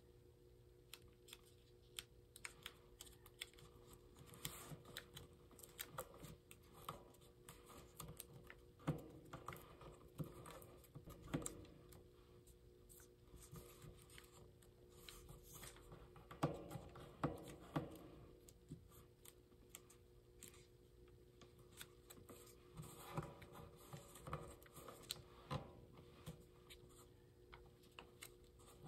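Faint rustling and small crisp clicks of origami paper being folded and creased by hand, with a few louder stretches of crinkling, over a faint steady hum.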